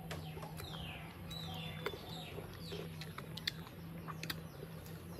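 A bird calling in the background with a few quick, high falling chirps, over scattered crisp clicks of chewing raw green mango and a steady low hum.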